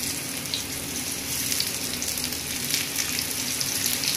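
Besan-stuffed bitter gourds (karela), just laid into hot oil on a flat iron tawa, frying with a steady sizzle and scattered small pops.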